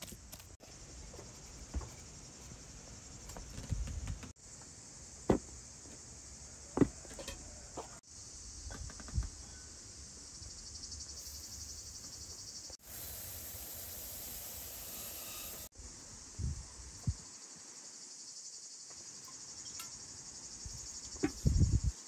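A steady high-pitched chorus of insects chirring in the background, briefly broken off a few times. Scattered short knocks and taps from handling food and bowls sound over it, the loudest cluster near the end.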